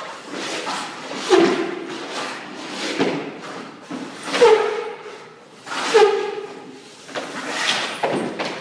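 A hockey goalie's skate blades scraping and his leg pads thumping on the ice as he shuffles and T-pushes side to side, one scrape every second or so.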